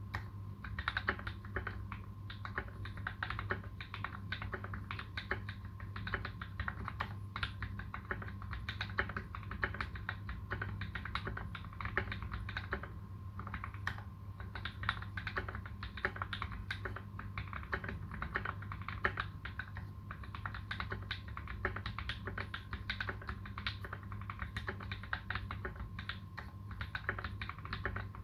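Continuous fast typing on a Space65 custom mechanical keyboard with fully modded Tealios v2 linear switches and PBT keycaps. There is a short pause about halfway, and a steady low hum sits underneath.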